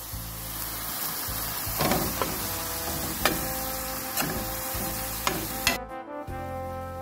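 Ground beef sizzling in a stainless steel skillet while a utensil breaks it up, clicking and scraping against the pan several times. The sizzling cuts off near the end.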